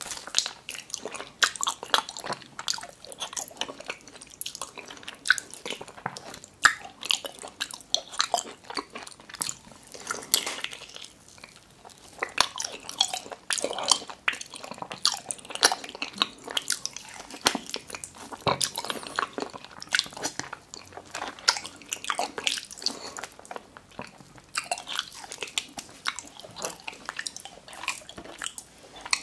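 A person chewing mouthfuls of raw tuna slices, a close, steady stream of sharp mouth clicks and smacks with short pauses between bites.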